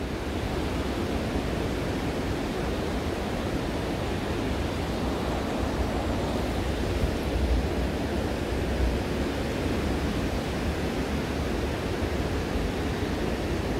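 Steady rushing of a shallow, clear river flowing over gravel and stones.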